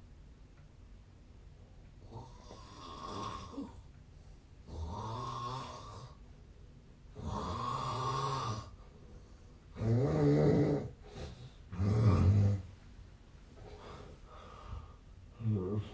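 A man snoring in his sleep: about six separate snores, each a second or so long, starting about two seconds in. They grow louder to the two loudest near the middle, then come fainter toward the end.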